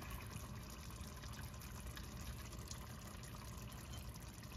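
Faint, steady hiss of chicken curry cooking in a pot on the stove over lowered heat.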